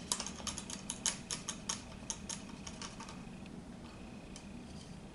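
A quick, irregular run of light clicks and taps from a small round paintbrush dabbing paint onto a stretched canvas, thinning out after about three seconds, over a faint steady hum.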